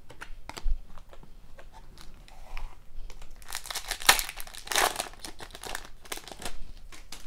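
Foil wrapper of a 2021-22 Upper Deck Series 2 hockey card pack being torn open and crinkled by hand. The crinkling is heaviest between about three and five seconds in, with a shorter burst near the end.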